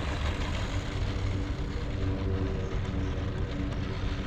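Losi Mini JRXT 1/16-scale RC truck's brushed electric motor and drivetrain whining at a steady pitch as it drives, with wind rumbling on the microphone.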